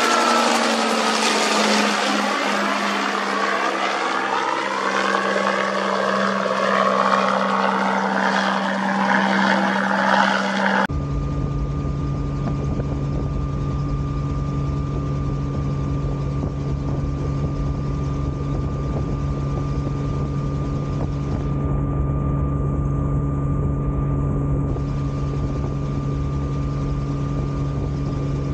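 Bell 47G2 helicopter with a Lycoming piston engine flying past overhead, its rotor and engine sound sweeping in pitch as it passes. About eleven seconds in it changes abruptly to the steady drone of the engine and rotors heard from inside the doorless cabin, with a strong low rumble.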